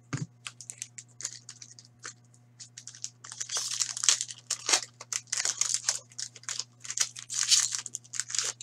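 Trading card pack being torn open by hand, its wrapper crinkling and rustling. Scattered light card clicks and slides come first, then dense crinkling from about three seconds in.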